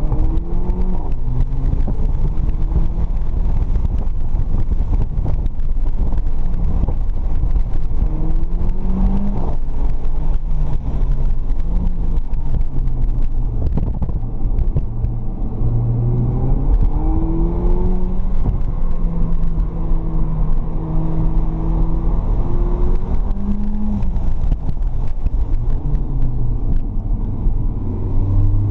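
Mercedes-Benz CLA45 AMG's turbocharged 2.0-litre four-cylinder heard from inside the cabin, accelerating hard and easing off again and again, its note rising and falling, over a steady low road rumble.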